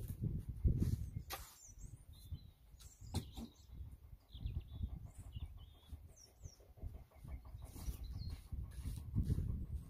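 Small birds chirping now and then over a low rumbling background, with a shovel blade scraping into stony ground a couple of times in the first few seconds.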